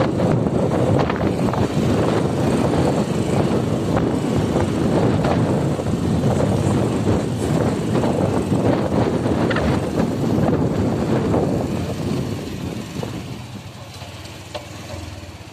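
A vehicle riding over a sandy dirt road: engine running and wind rushing on the microphone, dying down over the last few seconds as it slows to a stop.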